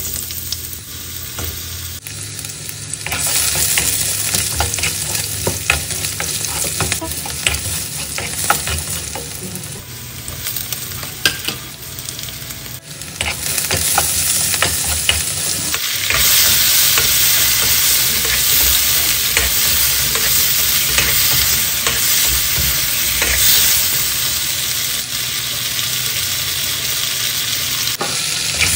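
Food frying in hot oil in a pan, a steady sizzle with a spatula stirring and clicking against the pan. The sizzle steps abruptly louder and softer several times, loudest over the second half.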